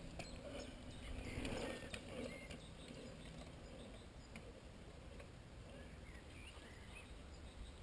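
Faint ticking of a mountain bike's freewheel hub as a rider coasts over the dirt bumps, a little louder about one to two seconds in.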